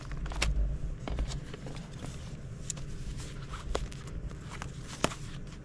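Old paper magazines being handled and leafed through: rustling and crinkling of brittle, worn pages, with scattered small taps and a sharp tap about five seconds in.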